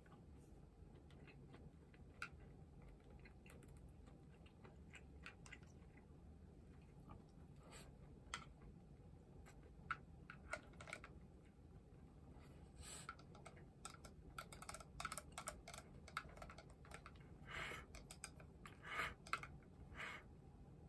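Quiet eating sounds: light clicks of chopsticks against a rice bowl, with chewing. The clicks are sparse at first and come more often in the second half.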